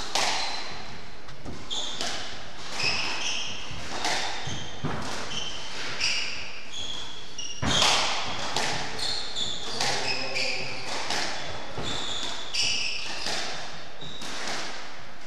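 Squash rally: the ball is struck by rackets and smacks off the walls about once a second, ringing in the hall, with short high squeaks of court shoes on the wooden floor between shots.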